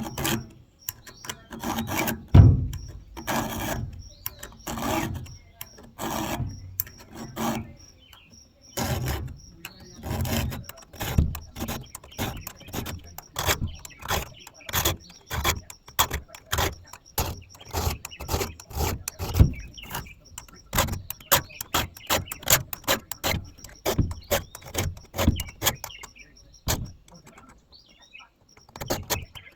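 Chainsaw chain being sharpened with a file: a long run of short, repeated rasping strokes.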